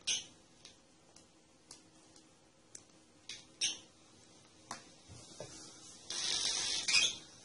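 Scattered light clicks and taps from hands handling small circuit boards, clip leads and wires on a tabletop. Near the end comes a brief rustle and a sharper click.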